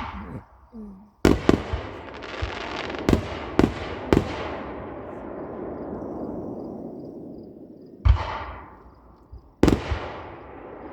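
Fireworks display: a quick series of sharp booms from aerial shells, then a long fading tail of crackle and echo, and two or three more booms near the end.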